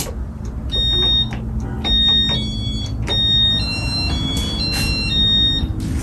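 Ceiling fan running with a steady low rumble. Over it comes a series of thin, high electronic tones that step between a few pitches, with a few soft clicks.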